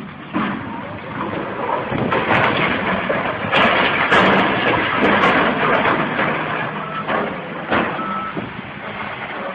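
Heavy machinery working, a dense mechanical noise with scattered knocks, and two short beeps like a reversing alarm near the end.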